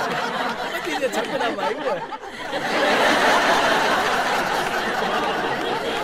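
A theatre audience laughing, the laughter getting louder and denser from about three seconds in.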